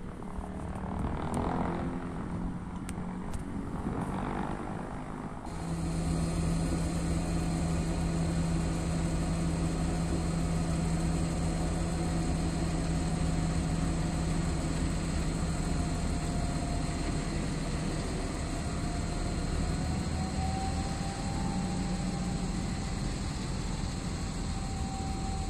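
Two-stroke V12 diesel engine of an M62-class diesel locomotive running with a steady low drone while shunting slowly. A faint whine rises slightly near the end. Before it, for about five seconds, there is a quieter rumble with a few light clicks.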